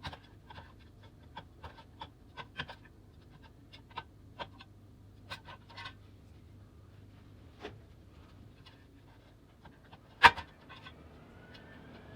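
Scattered light clicks and taps of small parts and tools being handled, then one sharp, much louder knock about ten seconds in. Near the end a faint rising whine begins.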